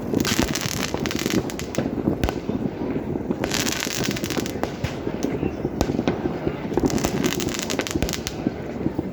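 New Year fireworks going off: a steady run of sharp bangs from bursting shells over a constant low rumble, with showers of crackle near the start, about four seconds in, and around seven seconds in.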